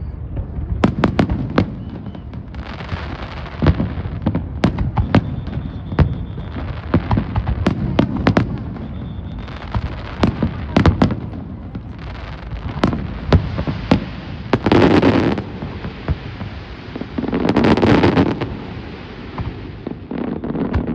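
Fireworks going off: a rapid series of sharp bangs mixed with stretches of crackling hiss, with two louder rushing bursts about two-thirds of the way through and near the end.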